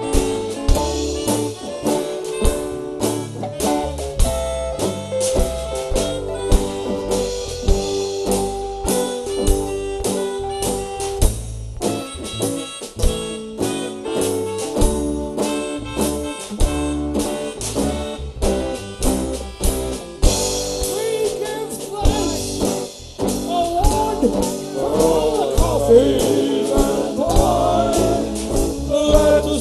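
Live band music with a drum kit and acoustic guitar keeping a steady beat under held melody notes; about twenty seconds in, wavering singing comes in over the band.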